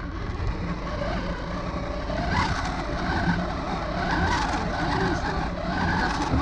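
Kitchen blender running on orange juice, its motor labouring with a pitch that wavers up and down over a steady low hum as it churns the thick mix of oranges and water.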